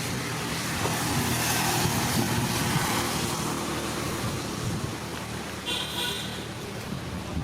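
Motor vehicle engine running with road noise, louder in the first few seconds; a brief high-pitched tone sounds about six seconds in.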